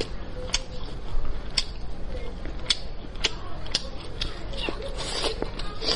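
Close-miked eating of a spicy braised pork knuckle: wet, sticky mouth clicks and smacks with chewing, as pieces of the gelatinous skin and meat are pulled off by gloved hands and eaten. The clicks come irregularly and grow busier near the end.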